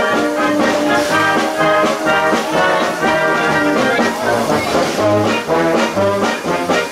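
Brass music: trombones and trumpets playing a tune.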